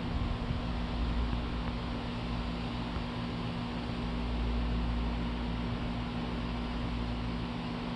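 Steady machine hum with a low rumble and an even hiss that does not change.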